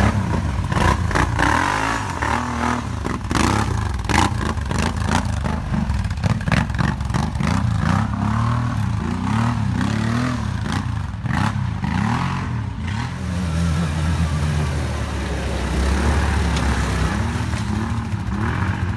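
Quad bike (ATV) engines revving over and over, the pitch rising and falling, with sharp clattering knocks in the first few seconds.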